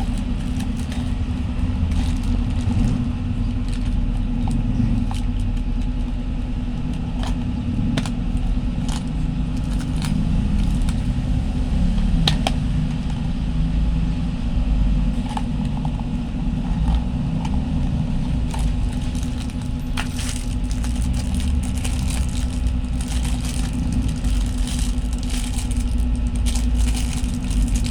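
Scattered clicks and light metal clinks from a bicycle repair tool kit being handled and unpacked, over a steady low rumble.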